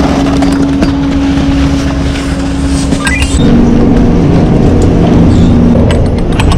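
Chairlift station machinery running with a loud, steady mechanical hum. The hum drops slightly in pitch about three and a half seconds in, and a few clicks come near the end.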